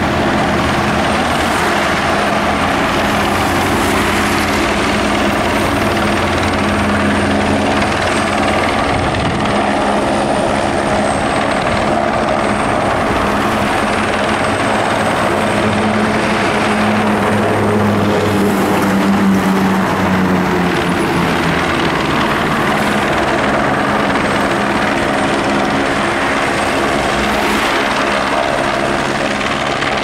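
Eurocopter AS350 Écureuil helicopter hovering with a load on a long line: steady, loud beat of the main and tail rotors over the turbine engine, with a faint high whine, holding steady.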